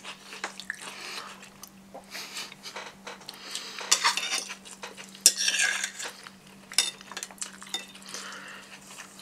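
Knife and fork clinking and scraping on glass plates as chicken is cut and eaten, in scattered short clicks with a few louder scrapes. A faint steady hum lies underneath.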